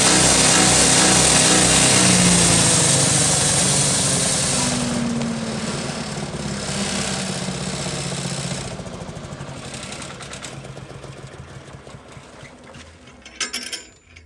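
Multifunction forage chopper, driven by a 7.5 hp petrol engine, running loudly while it grinds corn cobs. About five seconds in the grinding hiss drops away, and the machine winds down, fading steadily over several seconds. A few faint clicks come near the end.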